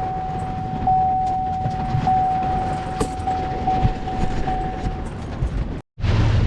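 Heavy rain pouring down, with a steady high tone running through it until about five seconds in. Near the end the sound cuts out briefly and a steady low hum takes over.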